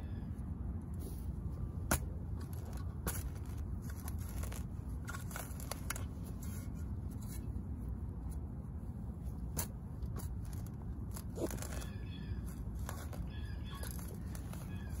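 A steel spade cutting into lawn turf along a brick border: scattered sharp crunches and clicks, with some tearing and rustling, as the blade is pushed and stepped down through grass roots and soil. A steady low rumble lies underneath.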